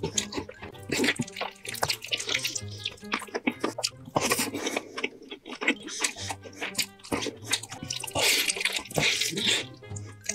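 Close-up wet chewing and lip-smacking from eating sticky, saucy braised pork, many quick wet clicks in a row, over background music with a low bass line.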